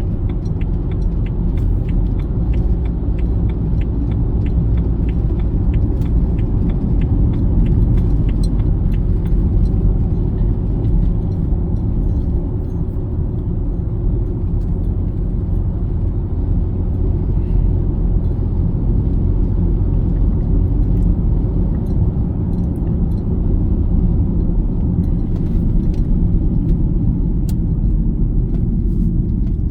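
Car driving at road speed, heard from inside the cabin: a steady low rumble of tyres and engine, with a regular ticking over the first several seconds.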